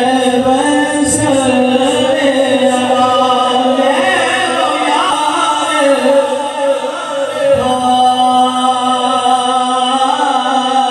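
A man singing a devotional chant into a microphone, drawing out long held notes.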